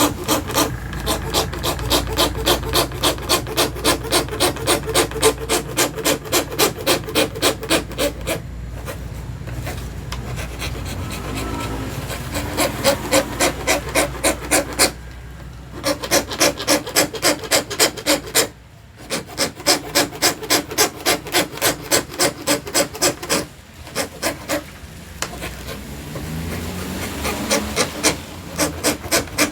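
Hand saw (plywood saw) cutting through an acrylic sheet in quick, even back-and-forth strokes, about three or four a second, stopping briefly several times.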